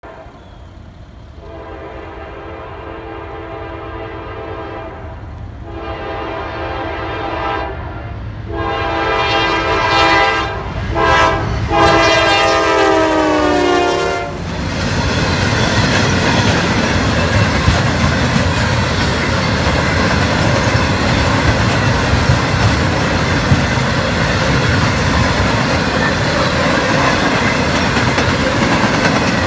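Norfolk Southern freight train passing close by: the lead diesel locomotive sounds its horn in a series of blasts, long ones with a short one near the end, and the pitch drops as the locomotives go by. Then comes a loud, steady rumble and clatter of wheels as the empty coil cars roll past.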